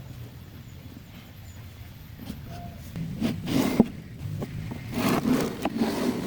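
Low steady hum, then from about three seconds in, bursts of scraping with several sharp knocks, the sharpest a little under four seconds in, and more scraping near the end.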